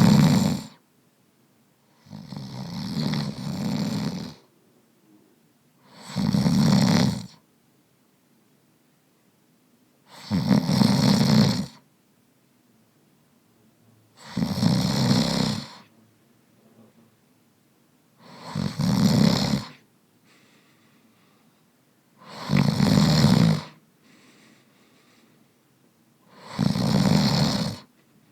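A man snoring in a steady rhythm, one snore about every four seconds, each a second or two long, with quiet gaps between breaths.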